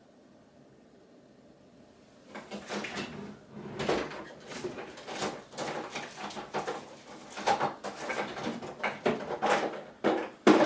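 Quiet room tone, then from about two seconds in an irregular run of knocks, clicks and rustling from someone moving about and handling things, typical of a door being opened. The sharpest knock comes near the end.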